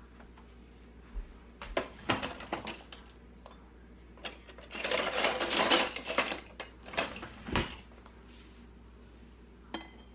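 Serving spoon clinking and scraping against a pot and plate while rice is scooped: scattered light clinks, a longer run of scraping about five seconds in, then a ringing clink and a knock.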